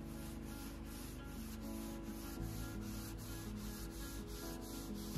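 Hand sanding with a fine sanding sponge, rubbing in quick even back-and-forth strokes: a light scuff-sand between coats of clear coat. Background music with held chords plays under it.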